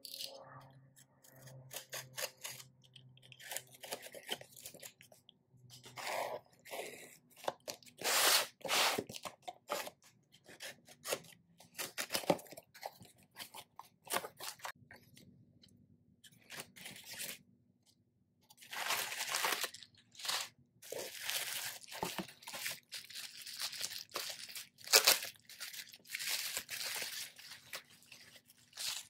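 Utility knife slicing through packing tape and cardboard on a shipping box, with tape tearing and cardboard flaps scraping open in irregular bursts. Toward the end, bubble wrap rustles and crinkles as it is handled.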